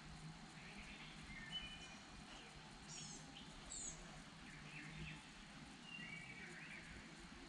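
Faint bird chirps: a handful of short calls and quick sweeps scattered through, over a quiet background.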